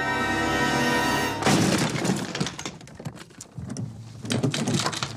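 Dramatic film-score music that stops abruptly about a second and a half in as a glass door pane is smashed with a loud crash, followed by crackling clatter of breaking glass, a short lull, and more rattling of glass and the door near the end.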